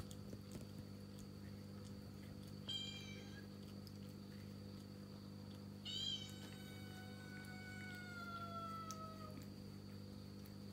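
Cat meowing: one short meow about three seconds in, then a long drawn-out meow that slowly falls in pitch, from about six seconds. The calls come from outside the room and are a cat calling for its companion cat to be let in.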